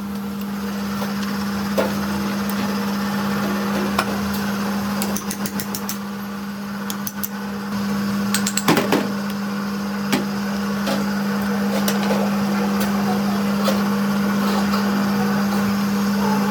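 A steady mechanical hum at one constant pitch, with scattered sharp clicks and knocks, including a quick run of clicks about five seconds in and a louder knock near nine seconds.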